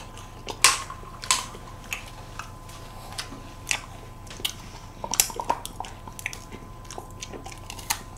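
Close-miked eating of ice cream: bites into a wafer cone and chewing, with irregular sharp crunches and wet smacks, a quick flurry of them a little past halfway.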